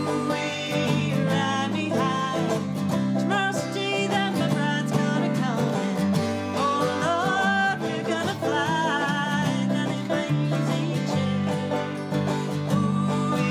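Banjo and acoustic guitar playing a folk tune together, with singing.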